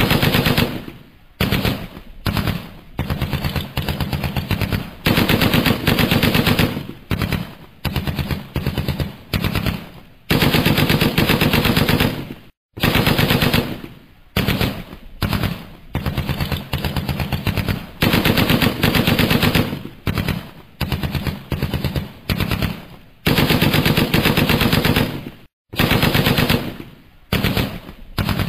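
Automatic machine-gun fire in repeated bursts of rapid shots, each burst lasting one to three seconds with short pauses between, with two brief complete cut-outs.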